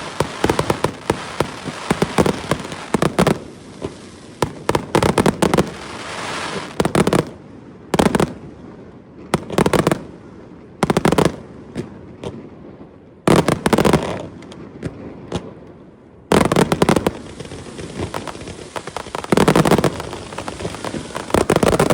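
Fireworks display: sharp bangs and crackling bursts going off in clusters every second or two, with a few brief lulls between volleys.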